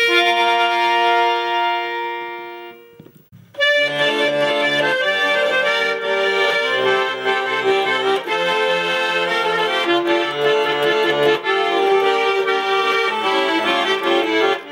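Garmon (Russian button accordion) holding a final chord that fades out over about three seconds, then, after a brief pause, starting a lively instrumental introduction with a steady bass-and-chord rhythm.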